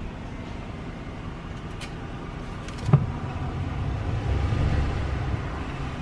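Ram pickup truck's engine running low, heard from inside the cab, with a single sharp click just before the three-second mark. The rumble grows a little louder past the midpoint as the truck moves off.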